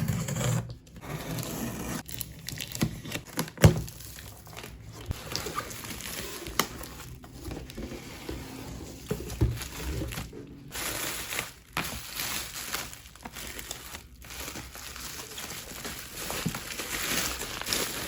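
Packaging being handled: plastic and paper crinkling and rustling, with some tearing and sharp clicks and knocks.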